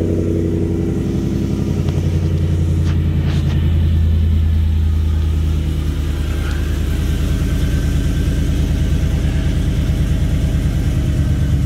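Whipple-supercharged Ford F-150 V8 idling on a cold start. Its catless long-tube headers, Vibrant resonator and Magnaflow muffler give a loud, steady exhaust rumble at the raised cold idle.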